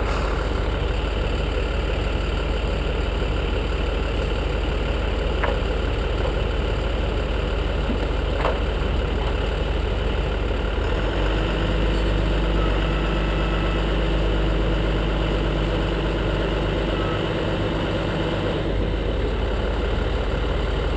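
A truck engine idling steadily, its note shifting and slightly louder for several seconds about halfway through.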